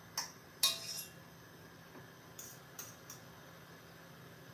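A few light clicks and knocks of kitchenware being handled, the sharpest about a second in and a small cluster near the middle, over a steady low hum.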